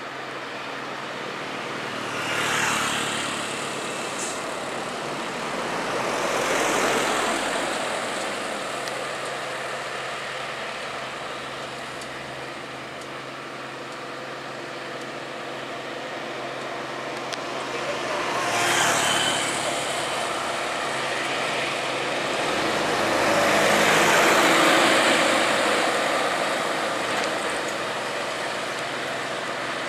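Road traffic on a steep climb: heavily loaded trucks crawling uphill with a steady engine hum, while four vehicles swell past and fade one after another.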